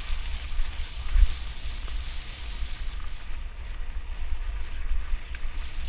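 Wind buffeting an action camera's microphone while riding a mountain bike, over a steady hiss of tyres rolling on a dirt trail. A single sharp click near the end.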